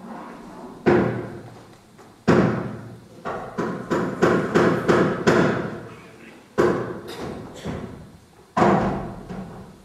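A series of sharp thumps and knocks, each ringing out briefly: about fifteen, bunched most thickly in the middle.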